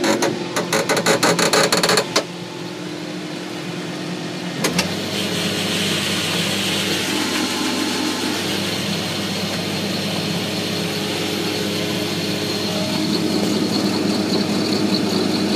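Combine engine running steadily in the cab. A rapid run of clicks sounds for about the first two seconds, and a little under five seconds in a click comes as a new low hum joins the drone, as something on the machine engages.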